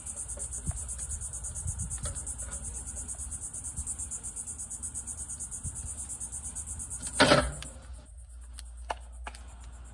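Insects chirring in a steady, pulsing high buzz that stops about eight seconds in. Just before it stops, a wire cooking grate is set down onto a charcoal grill with a short, loud clatter.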